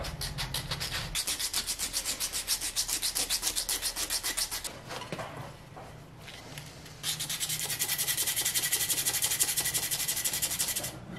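Sandpaper rubbed by hand over the wooden hull of a carved model canoe, in quick back-and-forth strokes, about three a second. The strokes ease off for a couple of seconds in the middle, then start again louder.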